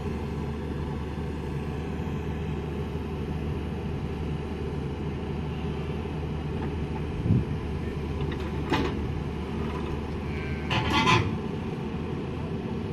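Hyundai hydraulic excavator's diesel engine running steadily under load as the machine levers itself with its boom and crawls up onto a trailer. A thump comes about seven seconds in, and two brief sharp noises follow near the end, the last one the loudest.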